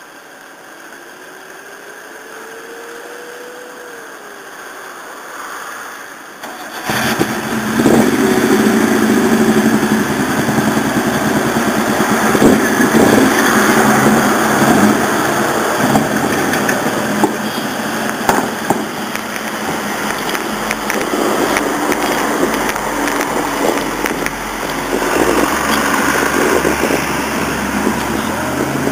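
Nissan Skyline Hakosuka's engine, heard faintly at first, then coming in suddenly and loud about seven seconds in and carrying on with its level rising and falling.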